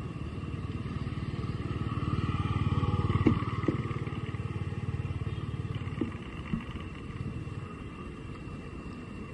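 A motor engine running, swelling louder in the middle and easing off toward the end, with a few sharp clicks over it.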